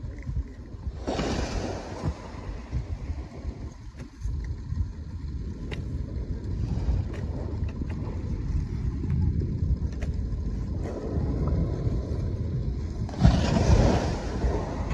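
Wind buffeting the microphone: a constant low rumble, with two strong gusts of hiss about a second in and again near the end.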